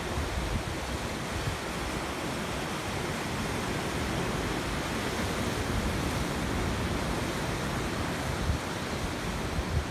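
Ocean surf breaking and churning around coastal rocks: a steady rush of white water, with wind rumbling on the microphone.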